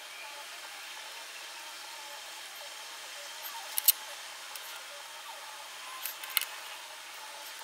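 Steady background hiss, with a few small sharp clicks about four seconds in and again twice around six seconds in, the sounds of handling makeup materials.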